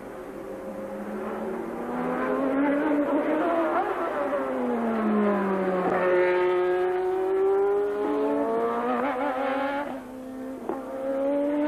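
1988 Formula 1 cars at high revs going past: one engine note climbs as a car approaches and drops steeply in pitch as it sweeps past about six seconds in, then another car's engine falls away and a new one rises near the end.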